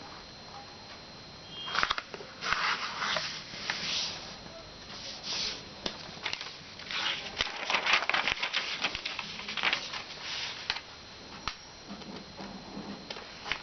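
A sheet of paper being handled and folded by hand: irregular bursts of rustling and crinkling with sharp creasing clicks, starting about two seconds in and dying down near the end.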